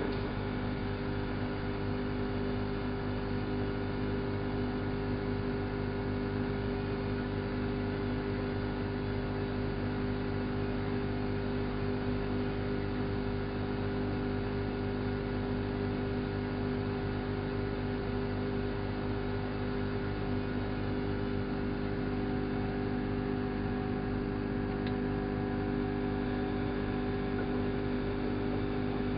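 Elin WM26AAA washing machine running with a steady motor drone and several constant humming tones, unchanging throughout.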